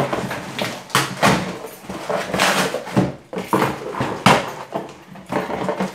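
Cardboard box being handled and its flaps folded: irregular scraping and rustling of cardboard, in strokes of uneven length.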